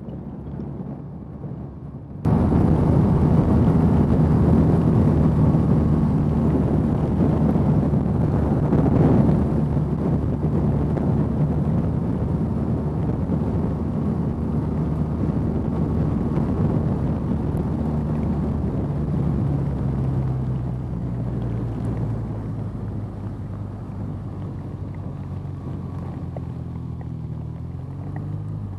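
BMW R nineT's air/oil-cooled boxer twin running steadily at cruising speed, mixed with wind and rain noise on the helmet microphone. The rushing noise rises suddenly about two seconds in, then slowly eases off.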